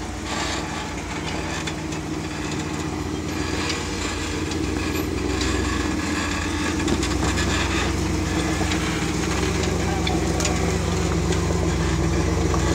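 Rock crawler buggy's engine running at low speed under load as it crawls up a rock ledge, slowly getting louder, with occasional clicks and knocks of tyres and chassis on the rock.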